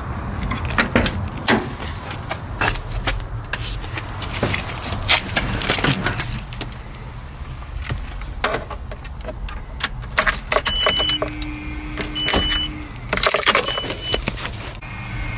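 Clatter and key jingling as someone climbs into a pickup's cab, over a steady low rumble. Three short beeps sound in the later part.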